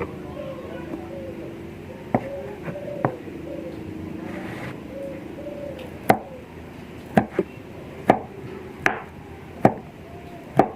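Knife chopping on a cutting board as boiled beef skin is cut into small pieces. There are a few scattered strokes at first, then a run of sharp chops about one a second.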